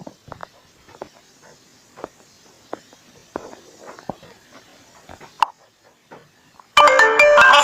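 Faint scattered clicks and taps, then near the end a loud synthesized ringtone tune starts playing from the phone: the freshly downloaded custom name ringtone.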